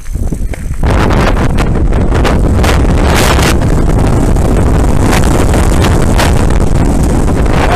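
Wind buffeting a helmet-mounted action camera's microphone on a fast downhill mountain-bike run, with the tyres crunching over loose slate and the bike clattering over rocks. The noise jumps up about a second in and stays loud, with many sharp clicks and knocks through it.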